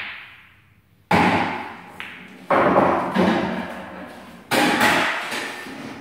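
Pool balls clicking after the cue ball is struck, then three loud knocks over the next few seconds, each with a long rolling, ringing tail, as a potted ball drops through the pool table's pocket and rolls into the ball return.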